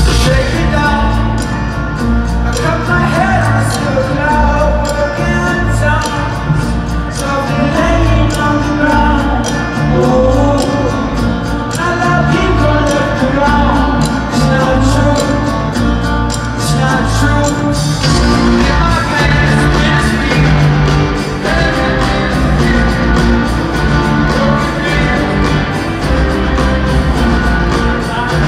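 Rock band playing live in a stadium, with a singer over guitars, bass and a steady drum beat, heard from far back in the arena.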